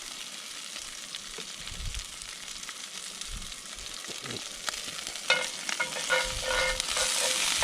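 Rabbit backstraps searing in a hot frying pan: a steady sizzle with scattered ticks and crackles. The sizzle grows louder near the end.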